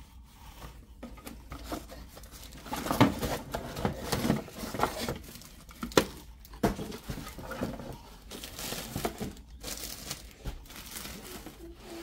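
Plastic packaging wrap crinkling and rustling as it is handled, with a couple of sharp knocks, the loudest about three and six seconds in.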